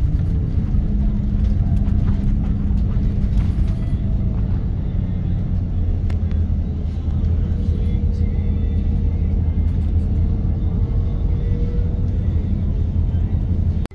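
Low, steady engine and road rumble heard from inside the cabin of a moving vehicle.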